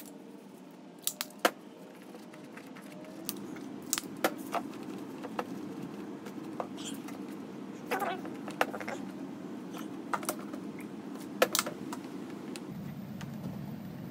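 Scattered sharp clicks and taps of a plastic door trim panel and small hand tools being handled and set down on a work table, over a steady low background hum.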